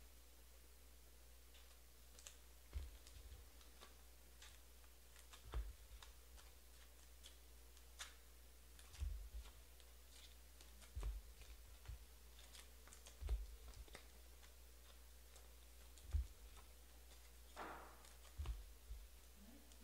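Faint, scattered clicks and taps with a soft low thud every two or three seconds: small objects being handled on a desk.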